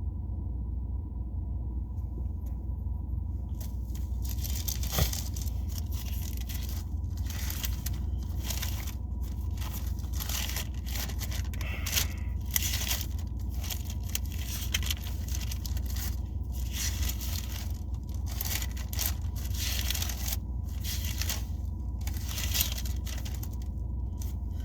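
Paper pages rustling and crinkling in irregular bursts as a book is leafed through, over a steady low hum.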